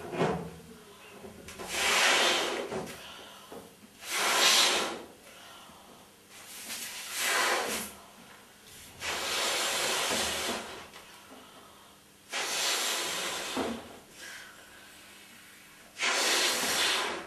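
A latex party balloon being blown up by mouth: about six long, hissing breaths pushed into it a few seconds apart, with quieter pauses for in-breaths between.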